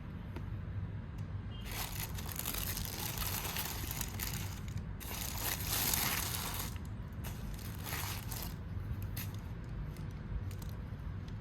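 Packaging rustling and crinkling as a shoe box is unpacked: two long stretches of rustling, then a few short rustles and clicks, over a steady low hum.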